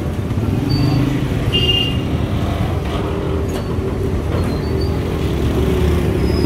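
Busy city street traffic: the engines of cars, buses and motorbikes running and passing close by, a steady low noise without a break.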